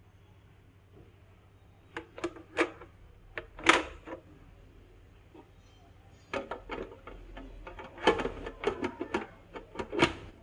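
Irregular clicks and knocks of small hard objects being handled and set down, in two spells: one starting about two seconds in, a busier one from about six seconds in.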